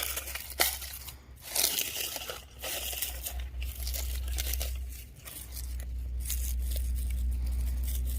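Rustling, crunching and crackling of hands digging through soil, hay and rotted yams in a bucket, with irregular clicks and a burst of noisy rustle about two seconds in, over a steady low rumble.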